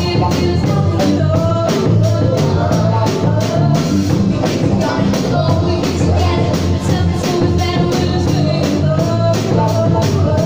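A live soul-funk band playing: electric bass, drum kit keeping a steady beat, keyboards, and lead and backing vocals singing.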